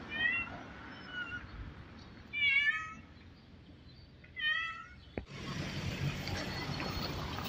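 A tabby cat stranded on a balcony ledge meowing repeatedly, four calls in about five seconds, the two longest wavering in pitch. Just after five seconds a click, then steady background noise.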